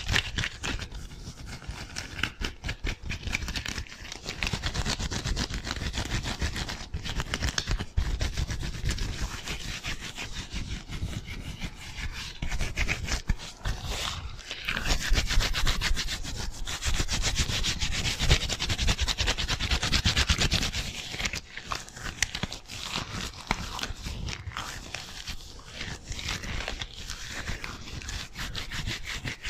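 White disposable gloves on two hands rubbing together fast and hard right at the microphone, a dense run of quick swishing strokes that grows louder for a stretch in the middle.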